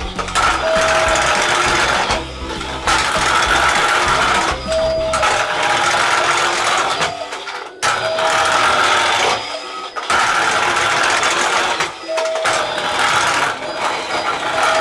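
Small electric motor and gears of a toy remote-control car whirring in runs of about two seconds with short pauses between them, as the car is driven in spurts.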